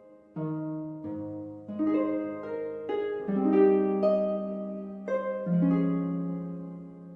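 Slow, gentle background music of plucked-string notes in soft chords, each group of notes ringing and fading before the next is struck.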